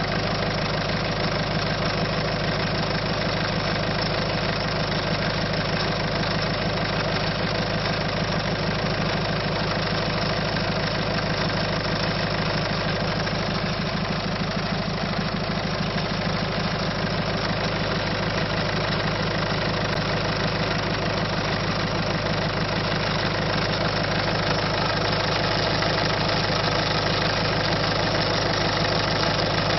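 1.6 HDi four-cylinder turbo-diesel engine idling steadily, with the abnormal engine noise being diagnosed.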